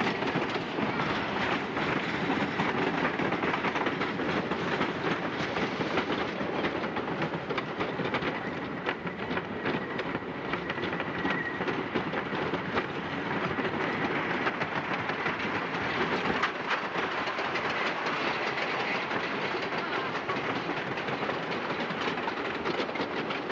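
Wooden roller coaster train rattling along its track with a steady rapid clatter of clacks as it is carried up the lift hill.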